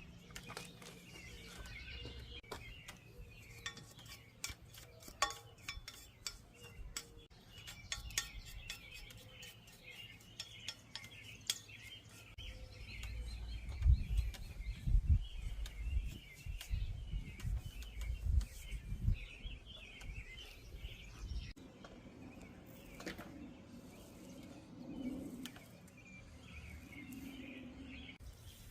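Birds chirping throughout, with many light metallic clicks and clinks in the first half and a run of dull low thumps and bumps in the middle.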